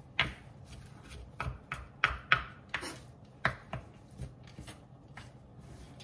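A chef's knife chopping fresh parsley on a wooden cutting board: about a dozen irregular knife strikes against the board, thinning out in the last couple of seconds.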